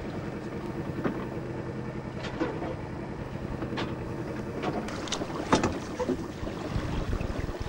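Sailboat's engine running steadily as the boat motors along, with water rushing past the hull and wind on the microphone. A few short sharp knocks or splashes stand out, the loudest about five and a half seconds in.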